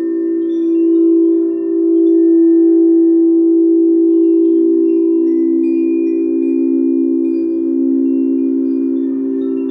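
Crystal singing bowls sung by rubbing mallets around their rims: a loud, sustained chord of low tones that pulse and waver as they beat against each other, with fainter high ringing overtones above.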